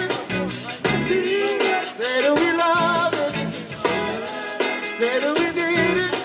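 Zydeco band playing live: accordion, electric guitar, keyboard and drum kit in a steady up-tempo groove, with sung vocals over it.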